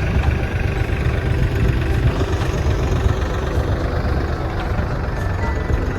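Tractor engine running steadily with a low, continuous rumble, as when pulling a potato digger.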